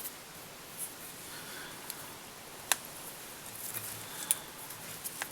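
Small sharp clicks and faint rustling of hands and fly-tying tools at the vise while a hackle feather is wound around the hook, about five separate clicks spread through, the loudest a little before the middle.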